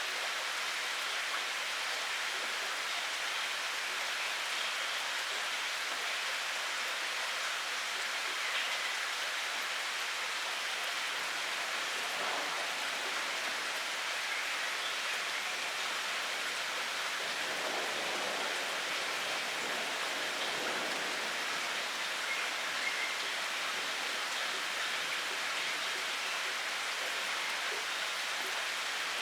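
Steady rain falling in a forest, an even hiss of drops that does not change.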